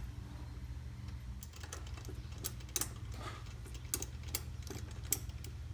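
Irregular light clicks and taps of a spark plug socket and extension turned by hand, threading a new spark plug into the engine, over a steady low hum.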